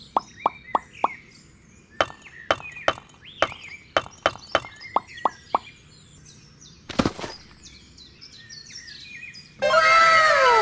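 Quick plopping clicks, about three a second and then irregular, as miniature bricks are set into wet mortar in stop-motion, over faint birdsong. One louder thud comes about seven seconds in. Near the end a loud bright swell with several falling whistle-like tones begins.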